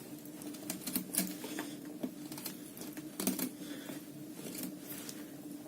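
A folding knife blade shaving a wooden stick to make a feather stick, with several separate scraping strokes. The blade bites too deep into the wood.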